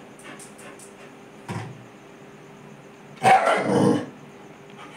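A dog barking: one short bark about a second and a half in, then a louder, longer burst of barking about three seconds in, given while the dog crouches in a play bow.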